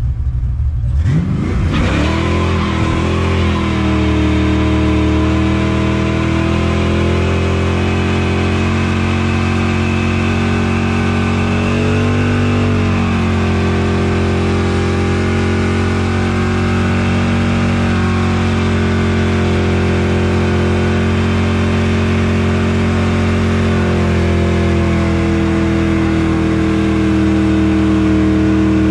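Fox-body Ford Mustang's engine revving up about a second in and then held at high revs through a long burnout, with a brief dip and recovery midway, while the rear tyres spin and smoke against the pavement.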